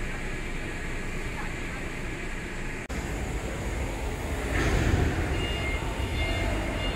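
Heavy container truck's diesel engine running steadily, with a break about three seconds in and a louder stretch after it, near five seconds.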